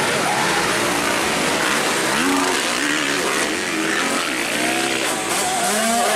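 Several 250cc motocross bikes racing, their engines revving up and down in overlapping, rising and falling notes.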